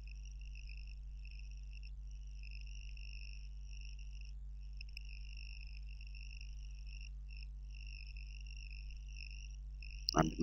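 Faint steady high-pitched chirring with a few brief breaks, over a low hum.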